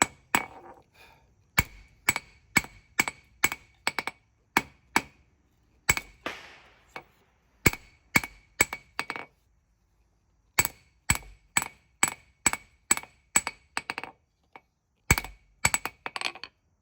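Hand hammer striking hot spring steel on an anvil as a small knife blade is forged, the anvil ringing with each blow. The blows come about three a second in runs of several strokes, with short pauses between runs.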